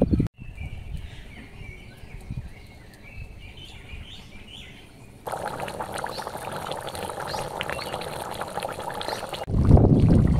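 Birds chirp faintly over a quiet background. About halfway through, a thin, watery curry gravy starts boiling in a metal kadai with a steady crackling bubble. Near the end a loud low rumble of wind on the microphone comes in.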